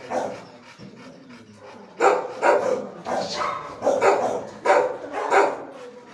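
Dog barking in a shelter kennel: fainter for the first two seconds, then a steady run of loud barks, somewhat under two a second.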